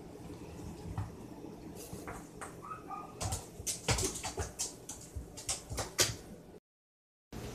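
A kitten's feet and claws tapping and scrabbling on a hard tiled floor as it runs and pounces, with a quick run of clicks in the second half. The sound cuts out completely for a moment near the end.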